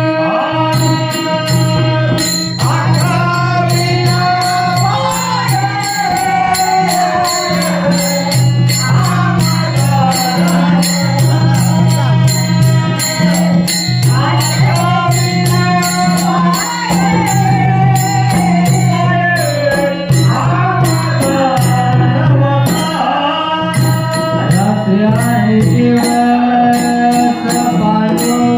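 Marathi devotional harijagar song: a solo voice sings long, gliding melodic phrases over a sustained harmonium and a fast, steady jingling percussion beat.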